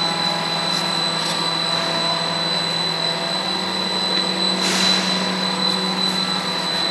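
LLDPE layflat pipe extrusion line running: a steady machine drone of electric motors and pinch-roller haul-off units, with a high, steady whine over it. A brief hiss about five seconds in.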